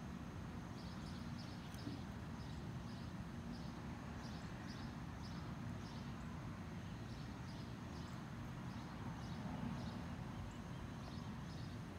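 Pond-side outdoor ambience: a steady low rumble and hiss, with clusters of short high chirps recurring about once a second.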